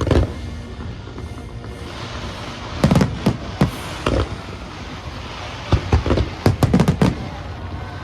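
Fireworks bursting: a bang at the start, a few sharp bangs about three seconds in, then a rapid string of bangs near the end, over music.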